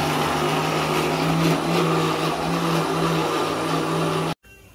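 Philips mixer grinder running steadily as it grinds grated coconut with a little water into a thick chutney paste. It cuts off suddenly near the end.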